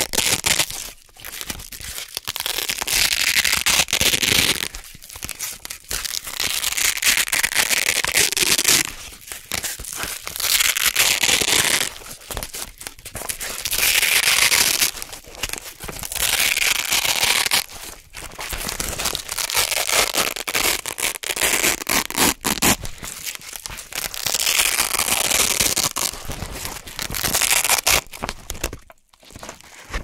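Velcro hook-and-loop strips being peeled apart close to the microphone: a run of crackly, crunchy ripping peels, each a second or two long, with short pauses between.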